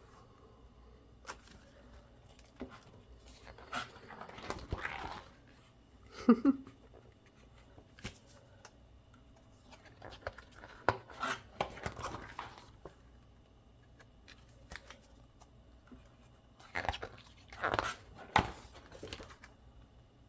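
Paper pages of a season's greetings planner being handled and turned in several separate bursts of rustling. About six seconds in there is one short pitched sound that falls in pitch, the loudest thing here.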